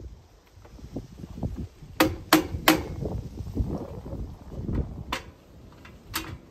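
Small hammer tapping on a piece of cardboard to drive a friction-fit aluminium cover clip into the side stile of an aluminium slat gate. Three quick taps about two seconds in, then two more single taps further on.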